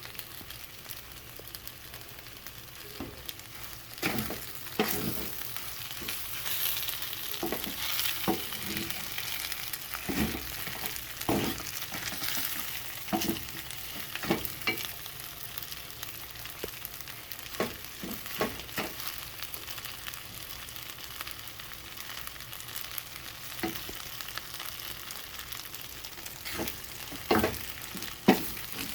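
Food sizzling as it fries in a hot pan, with irregular knocks and scrapes of a utensil stirring it against the pan.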